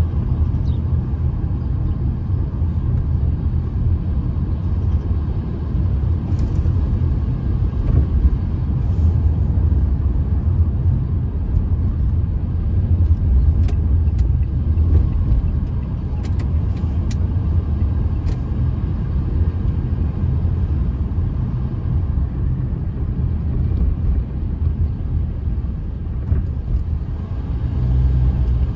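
Steady low rumble of a car driving along a city street, heard from inside the cabin: engine and tyre noise.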